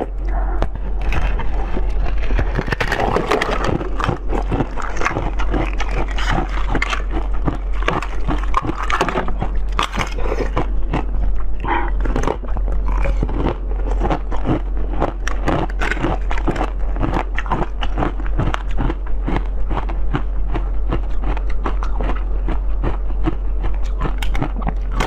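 Close-miked mouth sounds of eating soft jelly: wet biting, chewing and squishing, with many quick smacking clicks, and the jelly sucked from a cup near the end. A steady low hum runs underneath.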